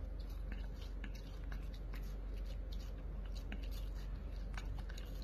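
Puppy nibbling at a watermelon slice: scattered small wet clicks and smacks of its mouth on the fruit, over a steady low hum.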